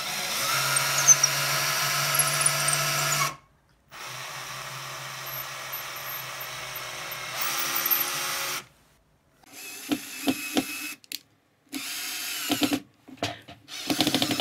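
Bosch 10.8 V cordless drill running a bit into the end of a wooden dowel, in several separate runs with short breaks. Near the end it runs with a fast, even rattle.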